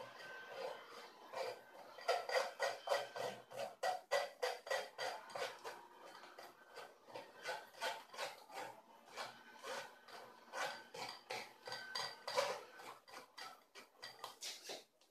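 Blended pomegranate and beetroot pulp being stirred and pressed through a metal mesh sieve, with a quick, irregular run of scrapes and clinks against the mesh.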